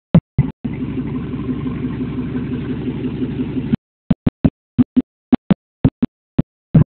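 Chevy Silverado 2500HD pickup idling through an aftermarket Borla exhaust, a steady low engine note. The sound breaks up into short snatches near the start and through the second half, with a steady stretch of about three seconds in between.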